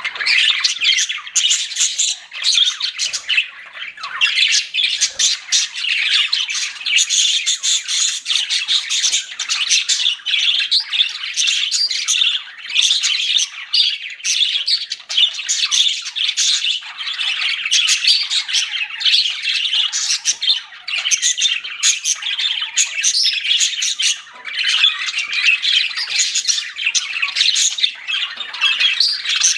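Pet budgerigars (parakeets) chattering, chirping and squawking nonstop, several birds calling over one another.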